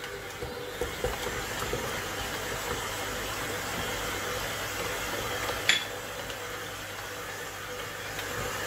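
Stand mixer running at low speed, its dough hook kneading bread dough in a stainless steel bowl as sunflower oil is worked in: a steady motor hum over the churning. One short click about five and a half seconds in.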